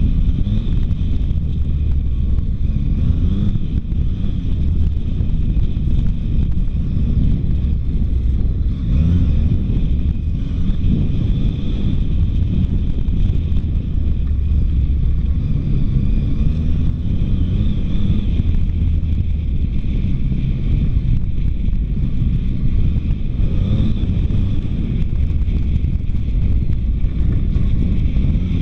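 Dual-sport motorcycle's engine running steadily as it rides along a sandy trail, heard from a camera mounted on the bike, with wind buffeting the microphone.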